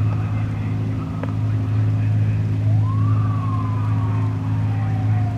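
A steady low engine hum, with a single siren wail about three seconds in that rises quickly and then slowly falls in pitch.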